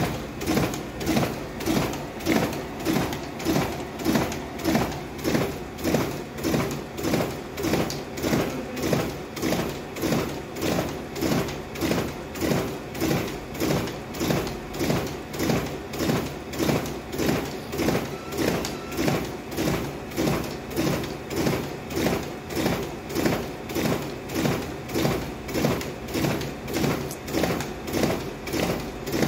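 Riso CV 3230 digital duplicator printing continuously, feeding and printing one sheet after another with an even beat of about one and a half sheets a second.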